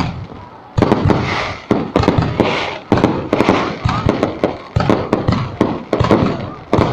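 Fireworks exploding: an irregular string of sharp bangs, several a second, following a short lull at the start.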